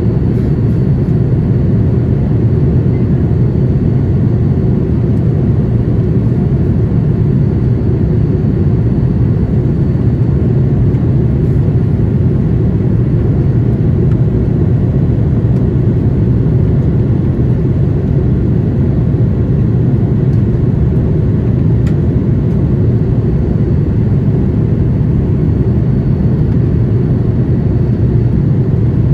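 Steady low roar inside the cabin of a Boeing 787-8 Dreamliner in flight: its GEnx engines and the rush of air past the fuselage, even and unchanging throughout.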